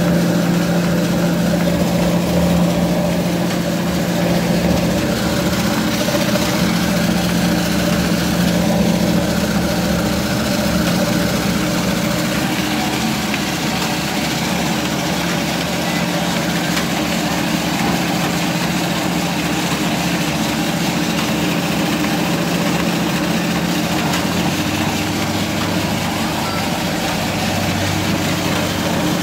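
Belt-driven cast-iron masala grinding mill running under load, grinding seeds fed from its hopper: a steady hum over a constant grinding noise.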